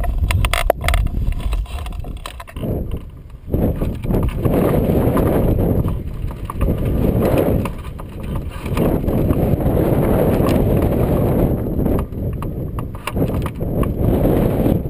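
Wind buffeting the microphone of a camera mounted on a hang glider's wing: a rough, low rumbling noise that surges and eases every few seconds, with a few clicks in the first second.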